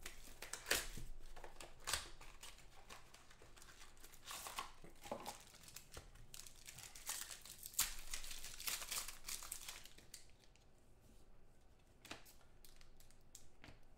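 Plastic wrapping of a trading-card box and its packs crinkling and tearing as it is opened by hand, in irregular rustles that grow quieter for the last few seconds.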